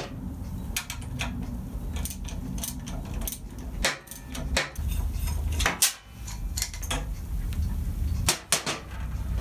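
Irregular metallic clinks and knocks of hand tools, a spanner and a T-bar socket wrench, working the engine-mount bolts of a Harley-Davidson Sportster and being set down on a steel lift deck, over a steady low hum.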